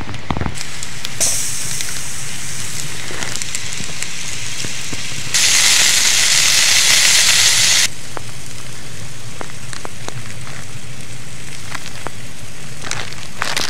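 Sausages sizzling in a wide pan over a campfire, with scattered crackles from the fire. About five seconds in, the sizzle turns much louder for two to three seconds, then drops back sharply.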